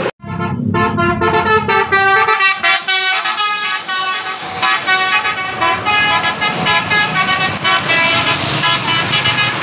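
A bus's Basuri 'telolet' multi-tone air horn playing a quick melody of short tooting notes that change pitch several times a second, with the bus engine rumbling underneath.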